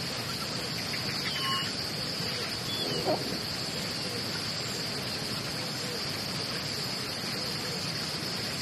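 Steady high-pitched chorus of insects, crickets by the sound, buzzing without a break over a hiss of outdoor ambience. A few faint chirps come about a second in, and a brief animal call stands out about three seconds in.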